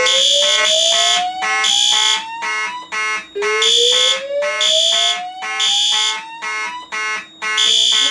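Fire alarm sounding on a Notifier NFS2-640 system after a pull station is pulled. A Simplex 2901-9838 mechanical horn coded to march time and a System Sensor P2W horn strobe in code 3 blast in repeating pulses. Under them, a slow whoop from the Notifier DVC voice evacuation speaker rises in pitch twice, each sweep about three seconds long.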